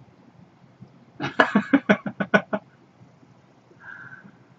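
A man laughing in a quick run of about eight short bursts, followed near the end by a faint brief hum.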